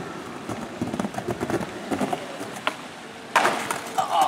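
Skateboard wheels rolling and clattering down a ramp, then about three and a half seconds in a loud crash as the skater bails: the board slams and clatters on the ground and he lands in wood chips.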